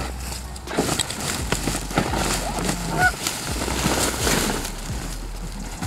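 A few short goose honks about three seconds in, over rustling and knocking noises.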